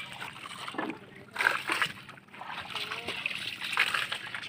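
Sea water splashing and sloshing against a fishing boat's hull and bamboo outriggers, in irregular bursts.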